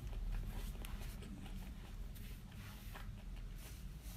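A person chewing salmon sushi with the mouth closed: soft, wet mouth clicks a few times over the seconds, over a steady low electrical hum.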